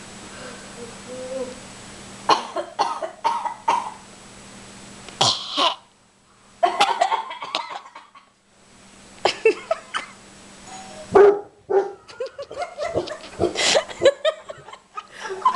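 Dog barking in repeated bursts, set off by the doorbell ringing; the barks start about two seconds in and come in clusters with short pauses between them.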